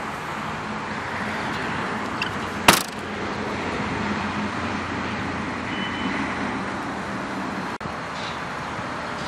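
The boot lid of a 2003 Mazda 6 saloon shuts with one sharp bang about two and a half seconds in, over steady outdoor background noise.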